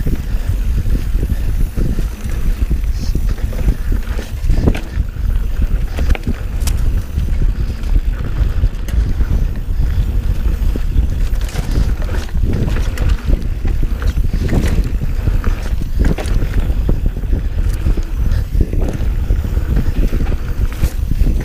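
Mountain bike running fast down dirt singletrack: a steady low rumble of wind buffeting the chest-mounted camera's microphone and knobby tyres on the trail, with scattered clicks and rattles from the bike over bumps.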